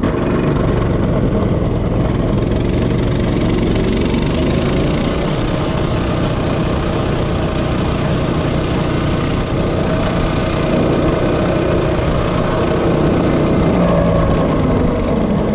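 Coleman CT200U-EX minibike's 196cc single-cylinder engine running at speed during a top-speed run, with wind noise on the microphone. Its pitch drops near the end as the bike slows.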